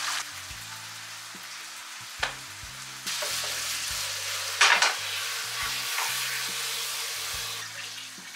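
Chicken pieces in a pepper-paste and olive-oil sauce sizzling in a frying pan as they are stirred with a spatula. The sizzle grows louder about three seconds in, with a brief loud clatter near the middle.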